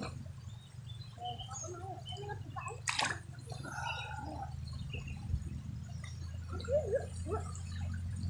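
River water gurgling and lapping close to the microphone around a person wading neck-deep, over a low steady rumble of the flowing river. A single sharp click about three seconds in.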